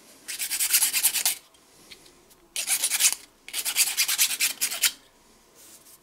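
Hand-shaping a G10 fibreglass knife scale with rapid back-and-forth abrasive strokes, in three bursts, the last the longest.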